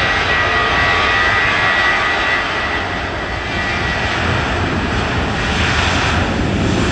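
Airliner engines running loud as a plane passes, with a high steady whine that fades over the first two seconds or so, leaving a broad rush.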